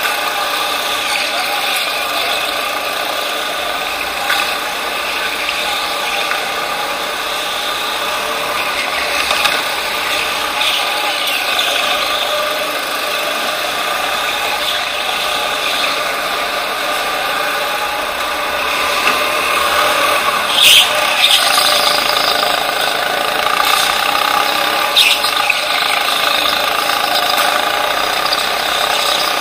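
A racing go-kart's motor running steadily at race pace, heard from onboard, with the chassis rattling and a few sharp clacks about two-thirds of the way through.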